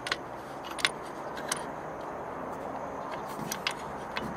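A handful of sharp clicks and taps from roof-rack crossbar mounting hardware as its bolts are turned and tightened by hand, over a steady background hiss. The loudest click comes about a second in.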